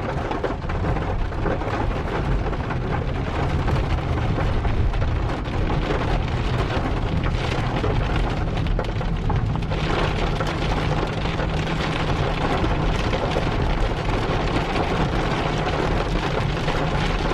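Heavy rain falling, a loud, steady, dense hiss with a low rumble beneath it, cut off abruptly at the end.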